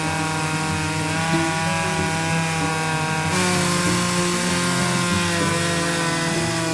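Vintage Stihl 056 two-stroke chainsaw running steadily under load, ripping a chestnut log lengthwise in an Alaskan chainsaw mill. Its pitch shifts slightly about halfway through.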